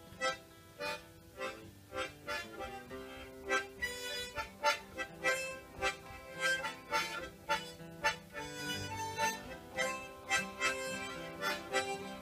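Harmonica playing a tune over an acoustic guitar strummed in a steady rhythm, about one stroke every half second; the tune is some kind of polka.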